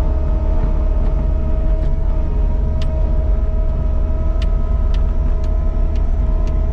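Caterpillar 299D2 compact track loader's diesel engine running at a steady speed, a deep, even drone. A handful of sharp clicks sound over it in the second half, roughly half a second apart.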